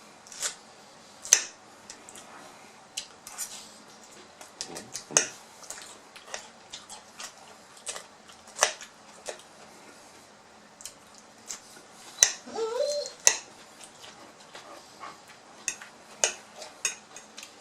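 Close-up eating sounds: wet chewing and lip-smacking, with scattered sharp clicks. About twelve seconds in there is one brief pitched vocal sound.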